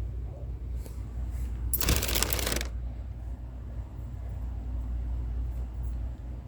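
A brief scratchy rustle about two seconds in, lasting about a second, over a steady low hum.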